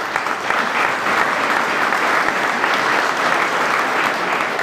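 Audience applauding, a steady even clapping that eases off slightly near the end.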